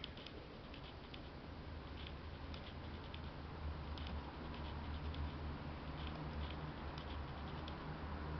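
A cat grooming itself, its tongue making quick, irregular soft clicks as it licks its fur, over a faint low rumble.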